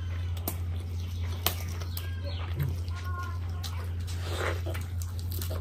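Close-up eating sounds: a piece of bhatura soaked in mutton curry being pulled from the pot and crammed into the mouth, with a few sharp mouth clicks and smacks and a wet, squelchy bite about four and a half seconds in. A steady low hum runs underneath.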